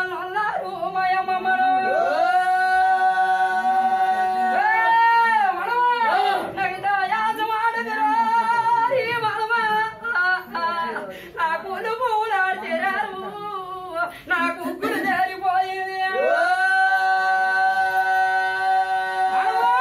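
A high voice singing a folk melody in long held notes that slide into pitch, with short breaks between phrases.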